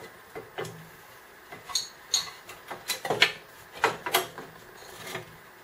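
Front cover shroud of a Tecumseh HM80 small engine being worked loose and pulled off by hand: a string of irregular clicks, knocks and rattles as it shifts against the engine.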